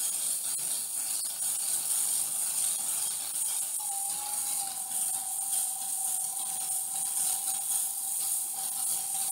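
Twin small brushed motor-on-axle motors of a 1/24-scale rock crawler, run by two 10A brushed ESCs, spinning the wheels in the air with no load: a steady mechanical whir. About four seconds in, a steady high whine sets in and holds.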